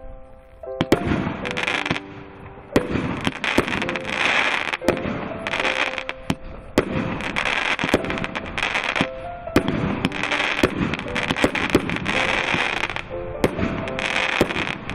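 A 36-shot Gold Life fireworks cake firing shot after shot, with a sharp bang about once a second, each followed by a spell of crackling from the bursting stars. Background music plays underneath.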